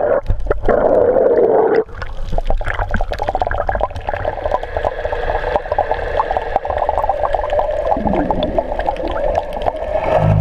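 Muffled underwater sound from a camera in a waterproof housing moving over a coral reef: water rushing and gurgling against the housing, with a steady crackle of many small clicks. The rush is strongest for the first two seconds, then drops suddenly.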